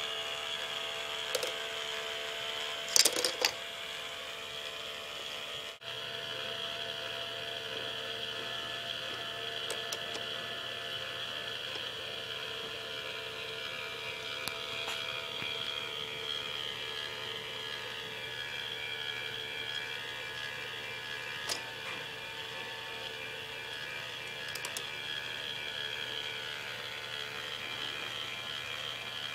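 K'NEX ball-lift mechanism running: a steady whir of its motor and plastic gears, with a few sharp plastic clacks, the loudest cluster about three seconds in.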